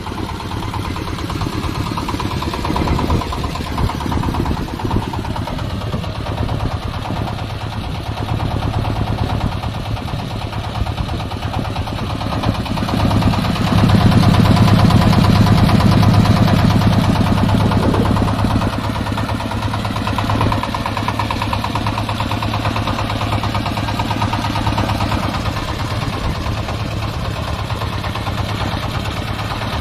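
Engine-driven corn sheller for unhusked maize running steadily with a low mechanical drone, growing louder for a few seconds in the middle before settling back.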